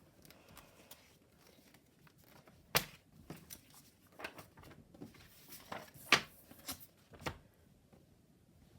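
Lego set packaging and parts being handled: a scatter of about eight short taps and crinkles, starting about three seconds in, the first the loudest.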